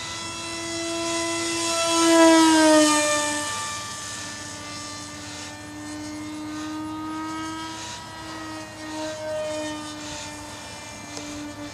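Whine of a small RC airplane's propeller driven by a 24-gram electric motor. It grows loud as the plane passes close about two seconds in, its pitch dropping as it goes by, then carries on steadier and fainter as the plane flies away.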